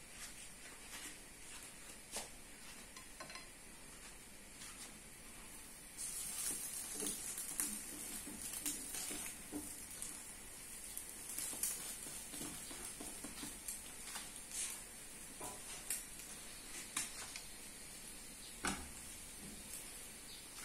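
Hot dogs and French toast sizzling in frying pans, a steady hiss that grows louder about six seconds in. Light clicks and taps of chopsticks against the pans come through as the food is turned.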